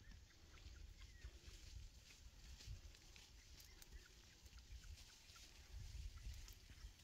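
Near silence: faint outdoor ambience, a low uneven rumble with scattered faint short chirps and ticks.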